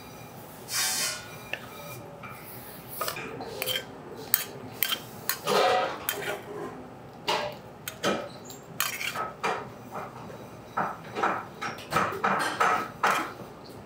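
A metal spoon scraping sauce out of a skillet, then metal tongs clinking and scraping against the skillet and a ceramic plate as vegetables are plated: a run of irregular clinks and short scrapes.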